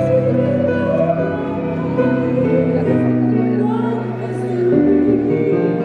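A woman singing held, slow notes into a handheld microphone over sustained keyboard chords, in a live vocal and keyboard duet.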